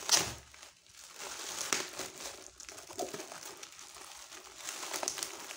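Plastic packaging crinkling and rustling as gloved hands handle and pull at the wrapping around a punching bag, with a louder crinkle right at the start followed by scattered softer crackles.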